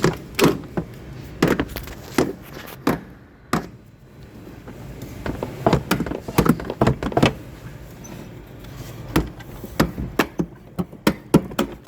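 Irregular knocks, clunks and rattles of a heater core housing being pushed and pulled by hand as its threaded studs catch on a metal bracket inside a 1986 Ford F600.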